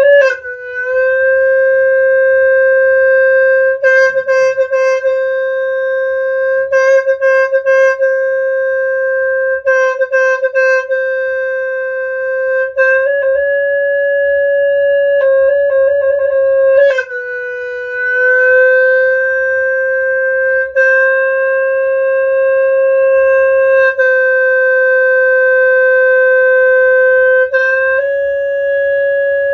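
Sneng, the Khmer horn, playing long held notes that move between two or three close pitches, with quick fluttering ornaments every few seconds.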